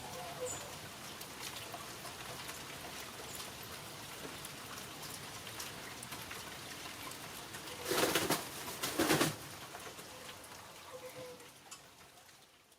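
Steady rain pattering, with a hen's soft, low murmuring calls now and then. Two loud, short rushes of noise come about eight and nine seconds in, and the sound fades near the end.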